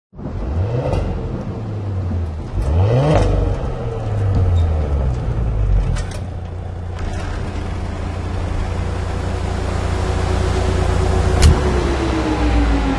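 Audi RS 4 Avant's twin-turbo V6 blipped twice in quick rising revs, then a steady low rumble. A single sharp click comes near the end, and a falling tone begins just before it ends.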